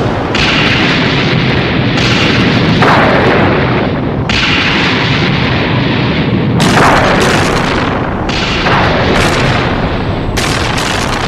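Designed King Ghidorah monster sound effects: a run of roars and blasts, a new one about every two seconds, several falling in pitch, over a constant low rumble.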